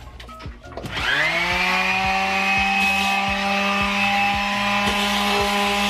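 A DeWalt cordless sheet sander is switched on about a second in, spinning up quickly and then running steadily. A few light handling knocks come just before it starts.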